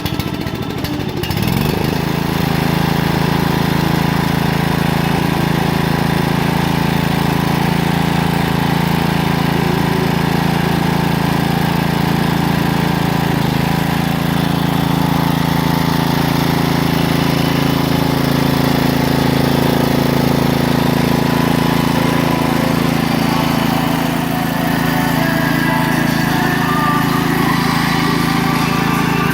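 Lawn mower engine running steadily, with a short rise in pitch about a second and a half in as it comes up to speed.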